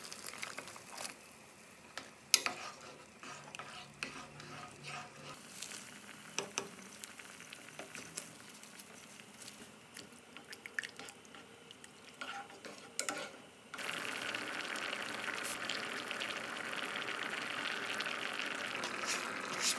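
A wooden spoon stirring rice porridge in a saucepan, with scattered clicks and knocks against the pot. About fourteen seconds in, this gives way abruptly to the steady hiss and bubbling of the porridge boiling.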